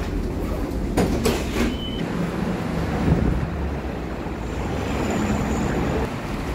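Tram at a station platform: a steady low rumble with passengers' footsteps, a cluster of knocks about a second in and a brief high beep about two seconds in.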